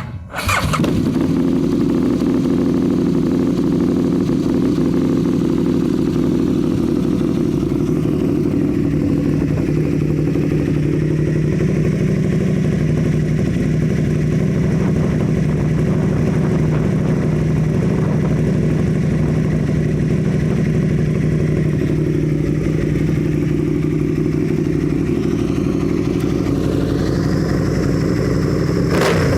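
Aprilia RSV Mille's 60-degree V-twin engine through an aftermarket SC Project exhaust, starting up and then idling steadily.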